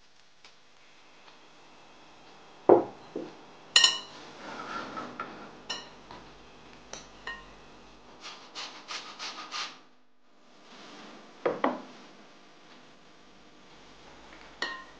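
Kitchen handling sounds: a glass mixing bowl, utensils and a pot knocked and set down on a wooden table. Several clinks ring briefly like glass, with a quick run of small ticks in the middle and rubbing and scraping between them.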